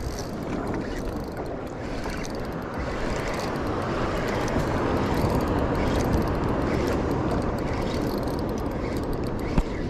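Wind rumbling on the microphone over water lapping around a small boat, with one sharp knock near the end.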